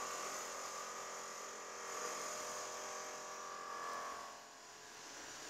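A steady electrical hum with several held tones, fading about four seconds in.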